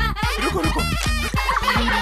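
Upbeat background music with a steady bass line, under children and an old man shouting and laughing excitedly.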